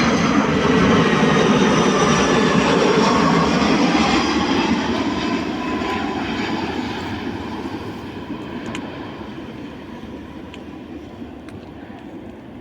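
Airbus A330-200 twin-engine jet airliner passing on its landing approach: a loud jet roar with a faint high whine that drifts slightly down in pitch. The sound fades steadily as the aircraft moves away.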